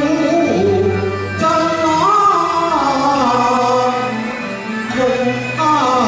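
Cantonese opera song (Yue qu) sung by a man over instrumental accompaniment, the voice sliding and wavering between notes in long held phrases.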